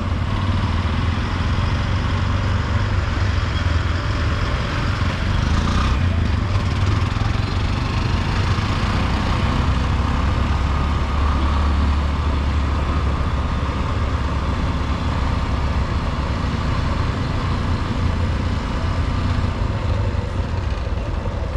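Motorcycle engine running steadily at low speed, with small engine traffic close around it.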